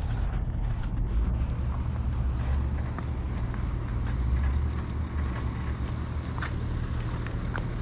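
Heavy engine running steadily, a low continuous rumble, with a few faint clicks and knocks.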